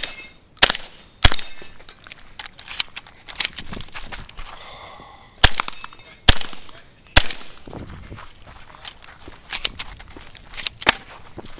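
Semi-automatic Benelli Taran Tactical 12-gauge shotgun firing, heard from the shooter's position: two shots about half a second apart near the start, then three more in quick succession around the middle. Quieter clicks and knocks fall between the shots.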